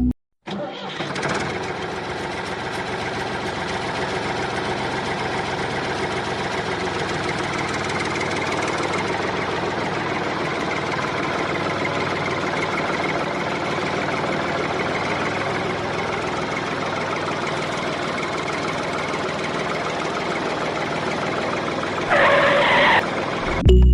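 Small motor of a miniature homemade tractor running steadily, with a dense mechanical whir. It starts about half a second in and cuts off shortly before the end, with a brief louder patch just before it stops.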